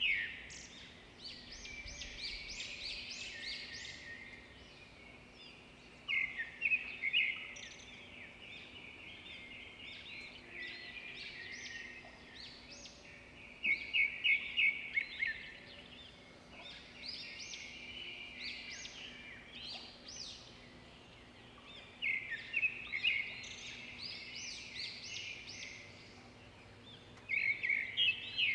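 Small birds chirping and trilling in loud bursts every several seconds, with quieter twittering in between.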